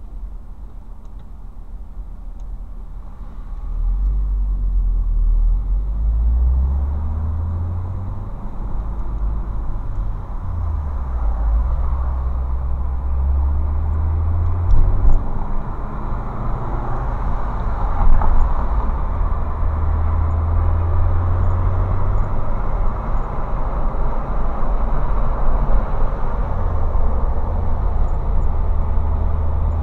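Road and engine noise inside a moving car, picked up by a dashcam: a quieter hum while waiting in traffic, then a louder low rumble from about four seconds in as the car pulls away and drives on. Two brief louder knocks come around the middle.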